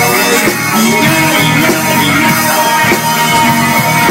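Live rock band playing an instrumental passage between vocal lines, with guitar and a drum kit.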